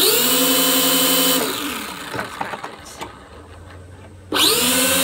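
Two small battery-powered electric motors with plastic propellers spinning up with a high whine when the battery is connected, then winding down in pitch about a second and a half in. They spin up again near the end.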